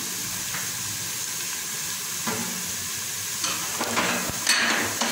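Chopped onions sizzling steadily in hot oil, with a wooden spatula scraping across the bottom of a coated pot a few times as they are stirred. The loudest scrape comes near the end.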